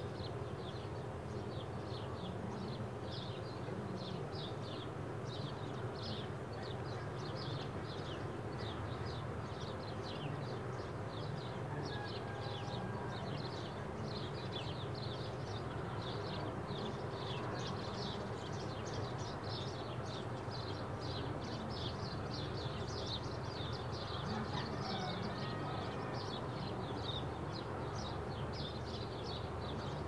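Steady background of rapid, high-pitched chirping, several short chirps a second, over a low steady hum.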